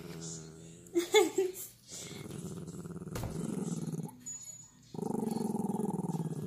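Small white curly-coated dog growling: a low, rattling warning growl in two long stretches, the second louder, near the end. A brief higher-pitched cry about a second in.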